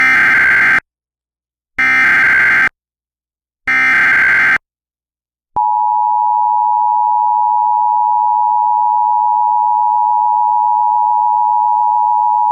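Emergency Alert System SAME header: three short bursts of buzzy digital data tones, each just under a second long and about two seconds apart. About five and a half seconds in, the steady two-tone EAS attention signal starts and holds.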